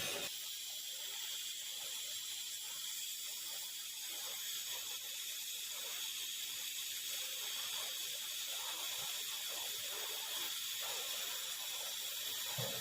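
TIG welding arc burning with a steady hiss.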